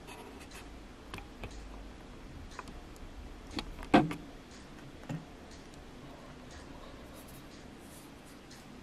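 Scattered light clicks and taps, with one sharp, louder thump about four seconds in and a smaller knock about a second later.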